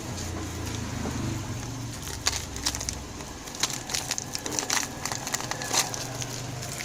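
Sharp clicks and scrapes of hand work on a motorcycle's free gear, the clutch-side gear, and its rubber dampers, most of them between about two and six seconds in, over a low steady hum.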